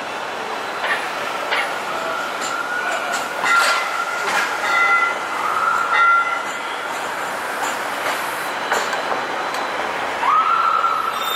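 A battery-electric Brookville Liberty streetcar passing on street-running track. Its rolling noise carries a wavering high squeal of the steel wheels on the rails that comes and goes and slides upward about ten seconds in, along with several sharp clicks.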